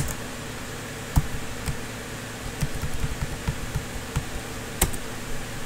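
Computer keyboard keystrokes, sparse and uneven, as a terminal command line is edited. A sharp key click comes at the start, another about a second in and one near the end, with a run of lighter taps in between.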